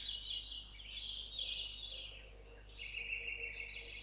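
Birdsong: a run of high chirps and trills that starts abruptly, with a long steady trill in the last second or so.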